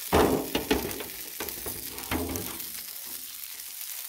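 Bacon-wrapped meatloaf sizzling on a Blackstone flat-top griddle, a steady frying hiss. During the first couple of seconds there are a few sudden clatters and crinkles as the aluminium foil pan covering it is lifted off with a spatula.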